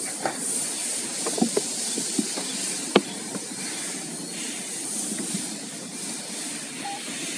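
Toyota C-HR's driver door being unlatched and opened and the driver getting in: a few light handle and latch clicks, then one sharp click about three seconds in, over a steady hiss.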